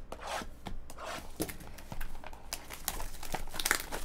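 Plastic shrink wrap being slit and peeled off a Bowman's Best trading card box, crinkling with irregular crackles and small tearing snaps.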